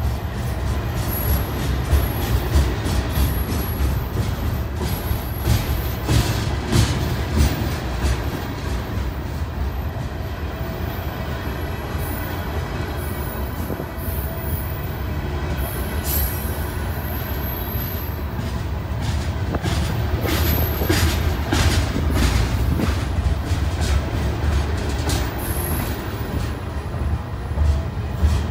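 Freight cars of a long CN freight train rolling past close by: a steady low rumble of steel wheels on rail, with irregular clacks as the wheels cross rail joints and faint high wheel squeals now and then.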